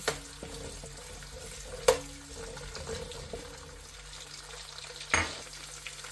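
Onions and curry leaves frying in oil in a pot, a steady sizzle, with two sharp knocks, about two seconds in and again about five seconds in.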